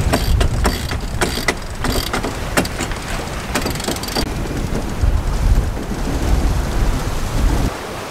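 Strong wind buffeting the microphone while under sail, with a run of sharp clicks at about two to three a second over the first four seconds: a cockpit winch ratcheting as the mainsail is reefed.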